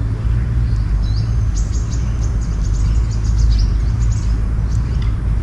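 Small birds chirping, with a quick run of short high ticks about one and a half seconds in, over a steady low rumble.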